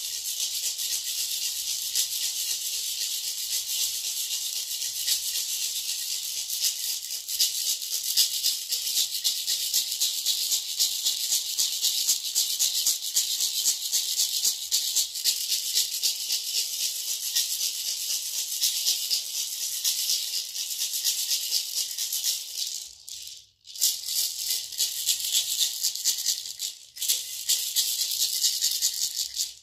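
Guaje, a seed-filled gourd rattle, shaken steadily in a continuous bright hiss of rattling seeds, broken by two brief pauses near the end.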